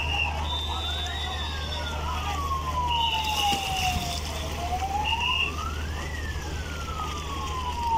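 Passenger launch's siren wailing twice, each wail rising quickly and then falling slowly over about three seconds, as the launch signals its departure from the ghat. A steady low engine hum runs underneath, and short high tones come and go.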